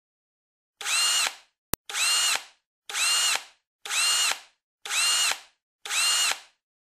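Power drill driving screws into door hinges: six short whirs about a second apart, each rising and falling in pitch, with a sharp click just after the first.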